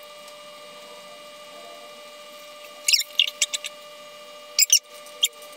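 Cork squeaking in a wine bottle's neck as a corkscrew is worked into it and levered out, in short clusters of high squeaks starting about three seconds in, over a faint steady hum.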